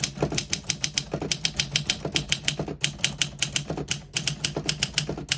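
1958 Olympia SM3 manual portable typewriter being typed on at a brisk, even pace, about eight key strikes a second. The typebars strike cleanly, with no skipping or sticking.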